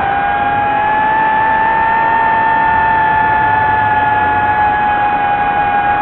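Drone's motors and propellers whining steadily, the pitch rising a little near the start and then easing slowly down.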